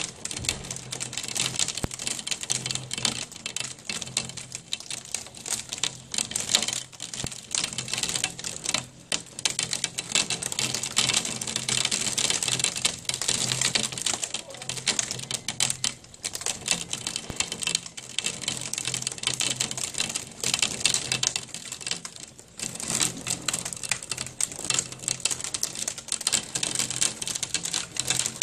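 Hail pelting down in a heavy storm: a dense, continuous clatter of hailstones striking the ground and nearby surfaces, mixed with pouring rain.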